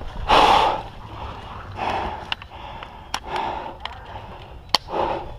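A paintball player breathing hard into his mask, with loud breaths roughly once a second. Two sharp clicks are heard, the second about a second and a half after the first.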